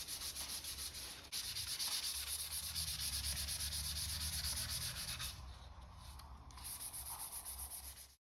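Sandpaper being rubbed by hand over dried glazing putty on a model kit part, in quick back-and-forth strokes to flatten a filled seam. The strokes pause briefly about a second in and are lighter for a stretch near the end. The sound then cuts off abruptly.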